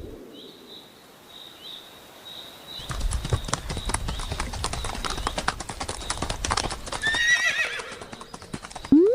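Horse hooves clip-clopping fast and densely, as in a galloping stampede, with a horse whinnying about seven seconds in. The first three seconds hold only faint, quick chirps.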